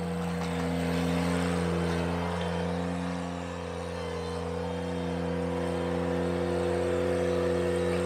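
Ventrac 4520Z compact tractor's engine running steadily under a gritty noise of loose gravel while it works the driveway, easing briefly about three and a half seconds in.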